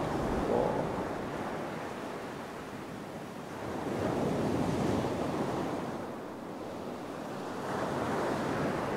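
Rushing, churning water with wind on the microphone as ice calves from the submerged face of the Perito Moreno glacier and breaks up through the lake surface. The surge swells twice, about four seconds in and again near the end.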